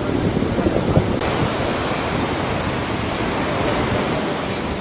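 Steady rush of surf on a sandy beach, mixed with wind on the microphone.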